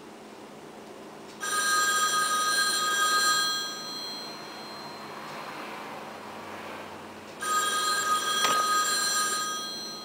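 Rotary telephone's electromechanical ringer ringing, its clapper striking the two bell gongs: two rings of about two seconds each, about four seconds apart, with a sharp click during the second ring.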